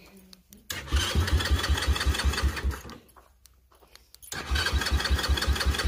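Electric starter cranking the Minirocket Raptor 150's single-cylinder four-stroke engine by remote start, in two bursts of about two seconds each with a fast even chug of about six beats a second. The engine turns over but does not catch either time: the remote start fails even with the engine warm.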